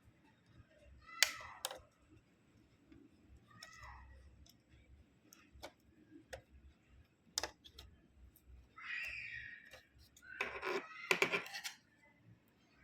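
Scattered light plastic clicks and taps from a thin tool working at a laptop's keyboard latches, pushing them in to free the keyboard: a sharp click about a second in and a quick clatter of clicks near the end.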